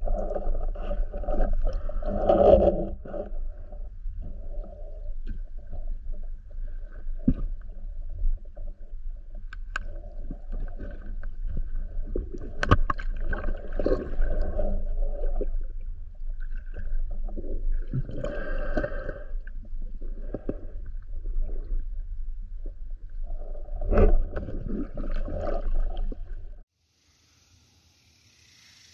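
Muffled underwater sound from an action camera in a waterproof housing during spearfishing: a steady low rumble with stretches of louder muffled noise and several sharp knocks, the loudest about thirteen seconds in as a speargun shaft drives into the sandy bottom. It cuts off suddenly near the end, leaving only a faint hiss.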